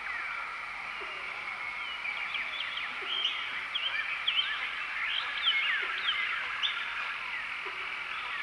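Tropical forest ambience: a dense chorus of many short chirping calls and quick rising and falling whistles over a steady high drone, with the calls busiest in the middle.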